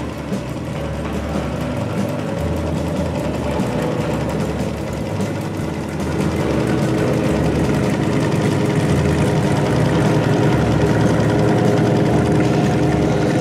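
Airboat engine and caged propeller running steadily, getting louder about halfway through.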